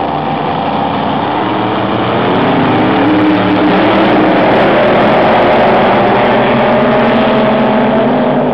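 Racing powerboat engines running hard at high revs, with several engine notes shifting in pitch. The sound grows louder about two seconds in and eases a little near the end.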